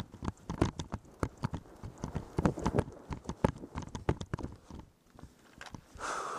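Irregular sharp clicks and knocks, a few a second, with a brief hissing burst near the end.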